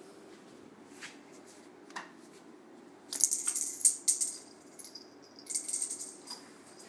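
Two bottle caps batted about by a cat, clattering and jingling in two rattling bursts, the first about three seconds in and the second about five and a half seconds in, after a couple of light clicks.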